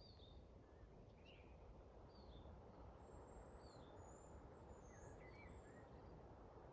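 Faint forest birdsong: scattered short chirps and thin high whistles from several small birds, a call every half second or so, over a low steady background noise.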